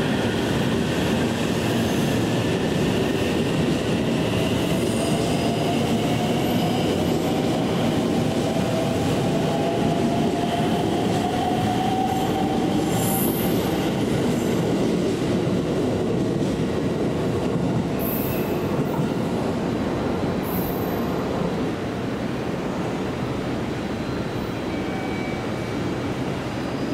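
Electric trains running slowly through a station: a steady rumble with a whine that rises slowly over several seconds, and high wheel squeal on curved track. One train pulls out as a JR West 681 series express rolls in.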